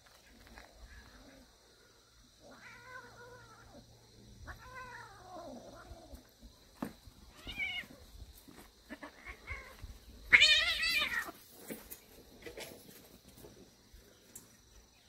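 Cats play-fighting and calling, with four wavering yowls and meows, the loudest and longest about ten seconds in.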